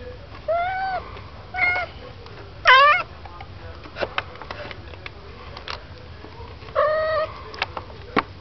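A cat meowing four times among kittens that are play-fighting, the third meow the loudest and sweeping upward. A few sharp little clicks fall in between.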